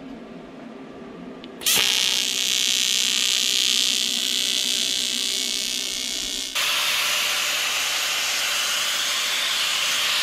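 A TIG welding arc strikes about two seconds in and runs as a steady buzzing hiss while aluminium is welded. About halfway through it gives way abruptly to a louder, rougher steady noise of an angle grinder running.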